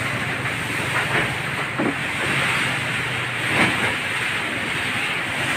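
Storm wind and rain against a corrugated tin roof and woven bamboo walls: a steady rushing noise with a couple of brief rattles, the wind strong, like a typhoon.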